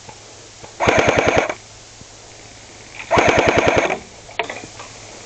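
An airsoft gun fires two rapid full-auto bursts, each under a second long and about two seconds apart. A few scattered clicks follow the second burst.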